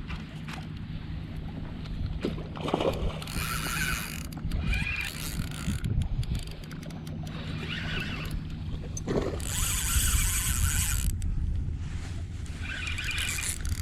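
Fishing reel being cranked in several short spells of rasping whir, over wind rumbling on the microphone.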